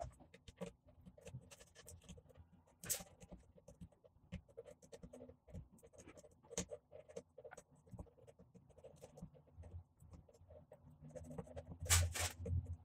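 Woodworking clamps being worked on a glued wooden box: small clicks and scrapes as a clamp handle is turned and set, with a louder clatter about three seconds in and again near the end.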